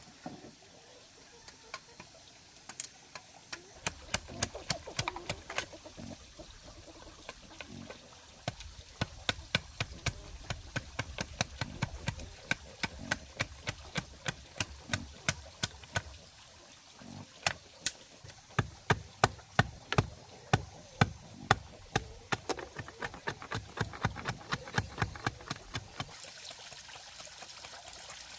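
Repeated sharp knocks, about two to three a second, in runs with short pauses, over a faint trickle of water.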